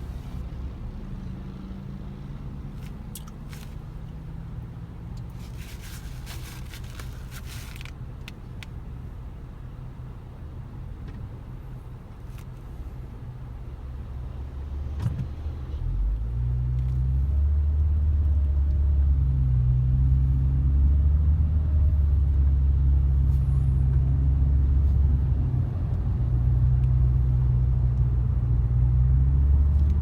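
A motor vehicle's low engine and road rumble, growing louder a little past halfway through.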